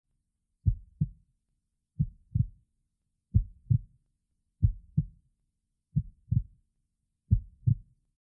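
Heartbeat sound effect: six slow lub-dub double thumps, evenly spaced about one and a third seconds apart.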